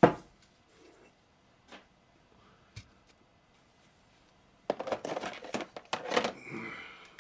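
Parts of a phaser rifle prop model being handled and fitted together: a sharp knock at the start, a couple of light ticks, then a busy stretch of clicking, tapping and rustling for the last couple of seconds.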